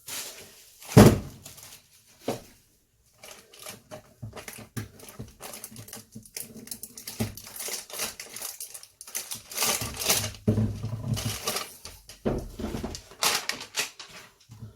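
Irregular clicks, knocks and clatter of kitchen items being handled, with one loud thump about a second in and a busier stretch of clatter near the end.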